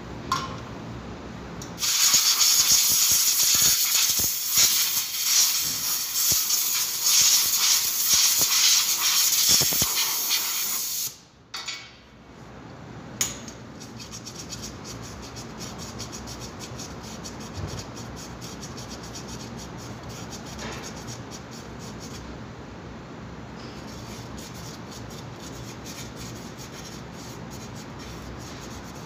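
A pressurised spray hisses loudly and steadily for about nine seconds at the rear wheel hub, then cuts off sharply.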